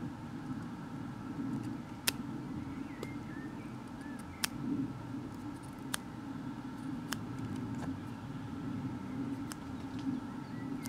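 Steady low outdoor background rumble, with about five sharp clicks scattered through it and a few faint short chirps.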